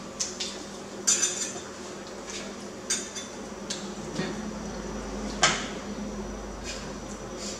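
Metal spoon and fork clinking against dishes during a meal: a scatter of sharp, irregular clinks, the loudest about five and a half seconds in, over a steady low hum.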